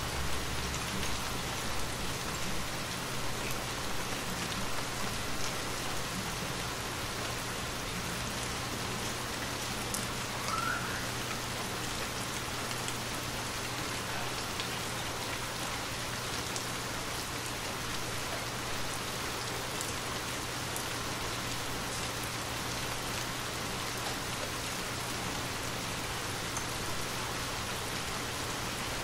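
Steady rain, an even hiss with scattered drop ticks, over a low steady hum.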